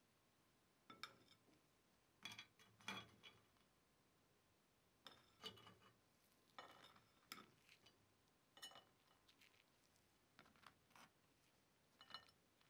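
Metal tongs clinking against a cast-iron corn stick pan and a glass plate as baked corn sticks are lifted out and set down: light, scattered clinks and taps, roughly one a second.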